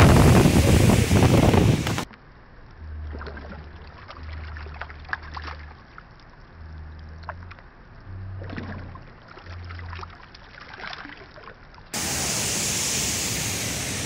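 Loud rushing of river water and wind on the microphone for about two seconds, then a cut to quieter background music carried by a line of low bass notes. About two seconds before the end, the loud rushing water of the waterfall comes back.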